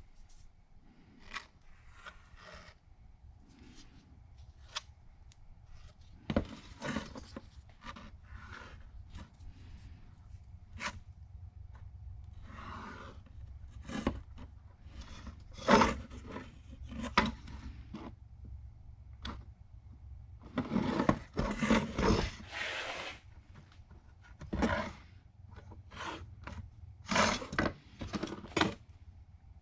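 Irregular scraping and rubbing strokes with scattered clicks, from 3M 08243 two-part repair adhesive being worked and smeared over ABS plastic as it sets up. The strokes come in uneven bursts over a steady low hum.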